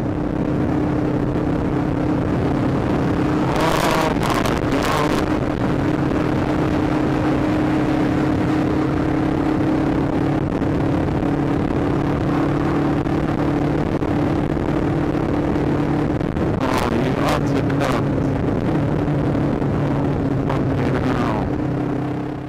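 Kawasaki GPZ500S parallel-twin engine running at a steady cruise on a wet road, under a rushing hiss of wind and tyre spray on a helmet microphone. Brief louder rushes of noise come about 4 seconds in and again around 17 and 21 seconds.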